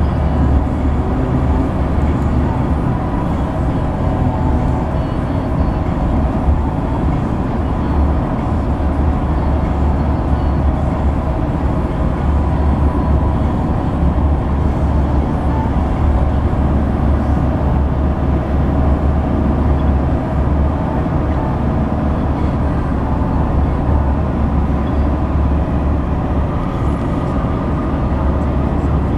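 Steady low rumble of road and wind noise from a car at speed, heard from inside its cabin.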